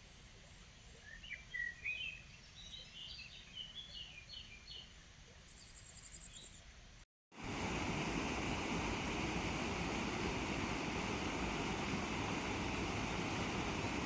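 Songbird chirping in quick short phrases over a faint background hiss. About seven seconds in the sound cuts out for a moment, and a loud steady rush of flowing river water takes over.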